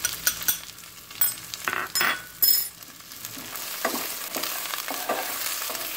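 Sliced okra sizzling in olive oil in a nonstick frying pan as it is stir-fried, with a string of sharp utensil taps and knocks, the loudest about two and a half seconds in.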